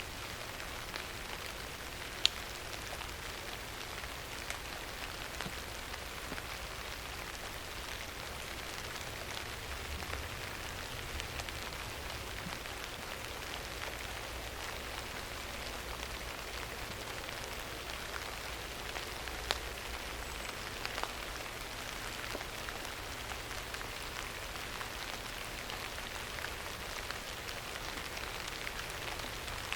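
Steady rain falling on a surface, an even hiss full of small drop ticks, with a couple of sharper drip clicks.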